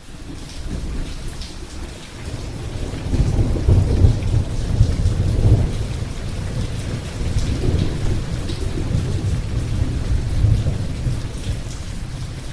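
Rain falling with thunder rumbling. The sound fades in at the start. The rumble swells about three seconds in and then rolls on unevenly under the steady hiss of the rain.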